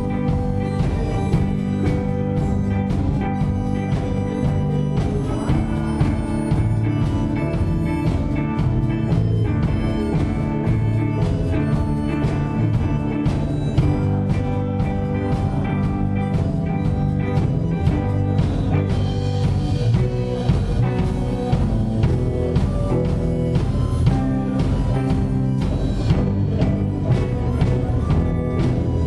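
Live church praise band playing a song: electric guitar and drums with a steady beat.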